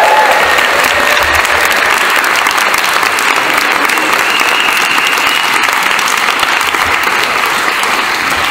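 A room full of wedding guests applauding: steady, dense clapping that eases off slightly towards the end.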